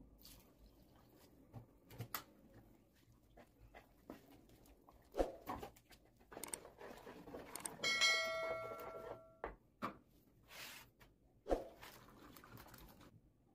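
A hand stirring wet white powder with water in a plastic bowl: faint scraping, squishing and small knocks against the bowl. A brief ringing tone sounds about eight seconds in.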